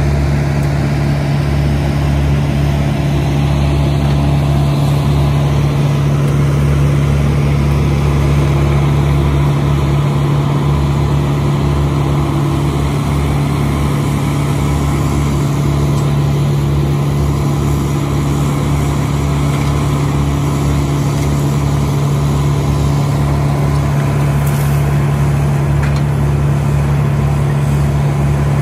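Wood chipper engine running at a steady speed, a loud, even drone with no change in pitch.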